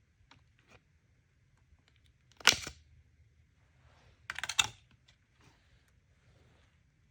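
Hands handling an unboxed surprise toy and its packaging: a few light clicks, a sharp snap about two and a half seconds in, then a quick crackly run of clicks a couple of seconds later.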